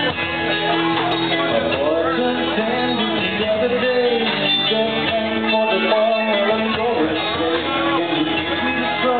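Live rock band playing, with a lead singer's voice over electric guitar, bass guitar and drums.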